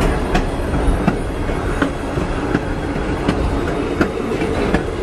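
Wheels of a 1925 passenger car rolling along the track: a steady low rumble broken by sharp clicks about every half second to a second, the clickety-clack of the wheels crossing rail joints.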